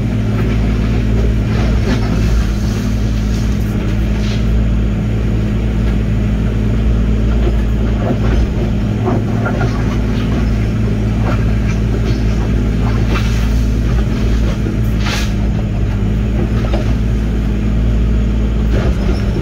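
Diesel engine of heavy earthmoving equipment running steadily, with a few short knocks along the way.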